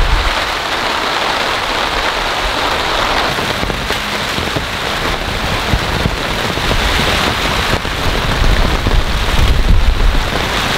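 Heavy rain pouring steadily, a dense even hiss, with a low rumble of wind on the microphone picking up near the end.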